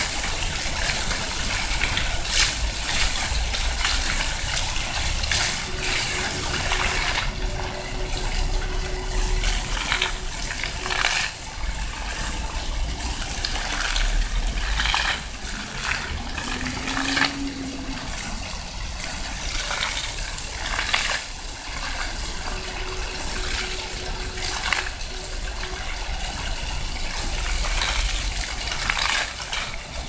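Floor fountain's rows of water jets spraying up from nozzles in the paving and splashing back down onto the wet stone: a steady rush of falling water broken by frequent splashes.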